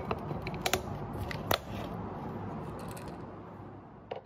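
Snap-lock plastic lid pressed onto a glass food container and its latches clicked shut: a series of sharp clicks and snaps, the loudest right at the start and about a second and a half in, with a couple more near the end.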